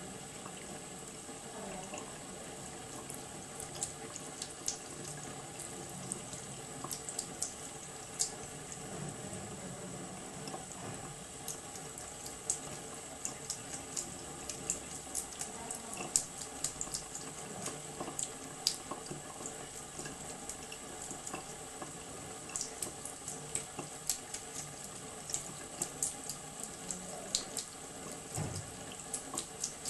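Thin stream of water running steadily from a kitchen tap into a sink, with frequent irregular small splashing ticks as a cat laps from the stream.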